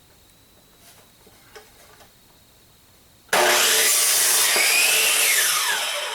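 Electric miter saw switched on about three seconds in, cutting through a wooden board: a sudden loud saw noise with a whine that rises as the blade spins up and falls as it winds down after the cut. Before it, only a few faint clicks of handling.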